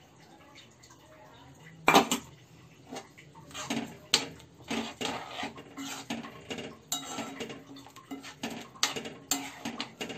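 Steel spoon stirring a thin curry in a metal pan, scraping and clinking against the pan again and again, with one loud metal clank about two seconds in.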